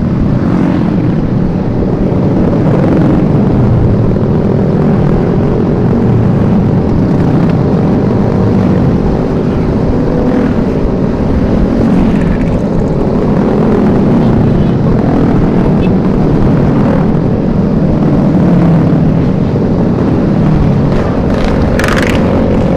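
Motorcycle and scooter engines running at low speed, their pitch rising and falling as they accelerate and ease off, over a heavy rumble of wind on the microphone.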